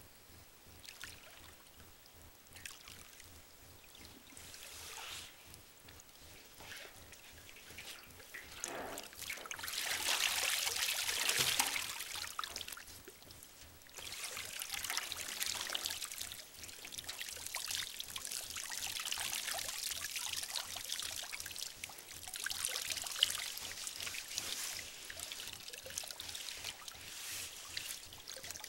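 Water splashing and sloshing in a metal tub as a person in sodden clothing moves and rises, then water pouring and trickling off a soaked down jacket and ski pants back into the tub. The splashing is loudest about ten seconds in.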